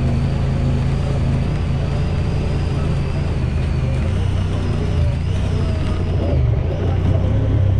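A vehicle engine running on the move. Its note changes pitch about halfway through and builds toward the end, with a faint, wavering high whine over it.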